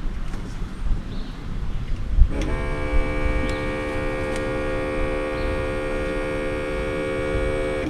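A budget automotive smoke tester's small electric air pump switches itself on about two and a half seconds in and runs with a steady hum, then cuts off near the end.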